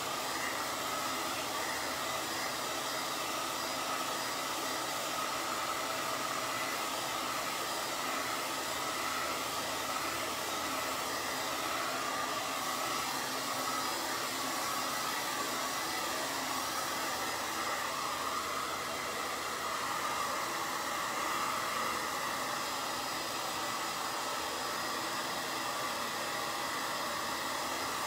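Handheld hot-air dryer running steadily, blowing over wet acrylic paint to dry it: an even rushing whir with a faint steady hum in it.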